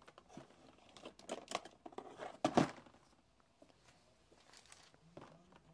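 Small plastic drill containers being handled in an open plastic storage case: a run of light clicks and rustles, the loudest about two and a half seconds in, then softer handling noise.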